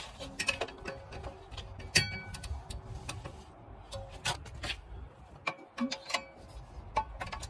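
Irregular metallic clicks and clinks of hand tools and a threaded rod and nut being handled and tightened against a brake caliper bracket, with one sharp ringing clink about two seconds in.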